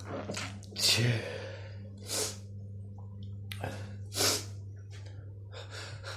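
A person in a sneezing fit: a string of sneezes with sharp gasping breaths between them, the loudest about a second in and again around four seconds in. A steady low electrical hum runs underneath.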